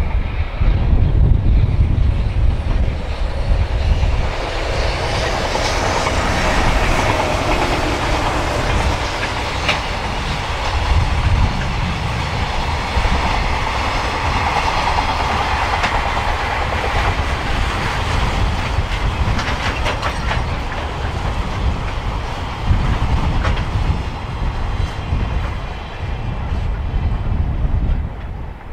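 A long container freight train hauled by an EH500 electric locomotive rolls past close by, its wagons' wheels clattering over the rail joints in a continuous rumble.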